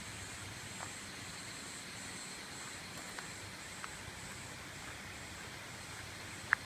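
Steady rush of a mountain stream, with a faint steady high whine over it, a few faint ticks, and one sharp click near the end.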